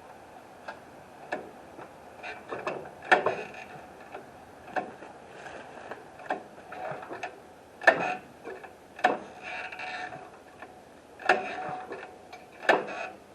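Branches being cut and snapped while brush is trimmed by hand: about ten sharp, irregularly spaced cracks with some rustling between them. The loudest come about three seconds in and about eight seconds in.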